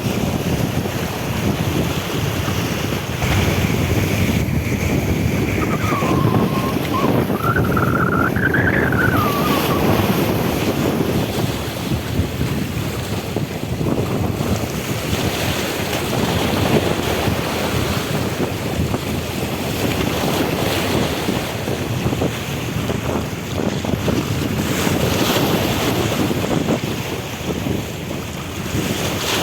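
Wind buffeting the microphone over the rush and splash of sea water. About six seconds in, a wavering whistle-like tone rises and falls for a few seconds.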